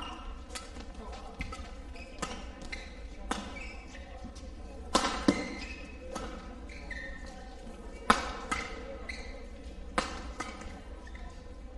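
Badminton rackets striking a shuttlecock on an indoor court: a series of sharp, irregularly spaced hits, the loudest about five and eight seconds in.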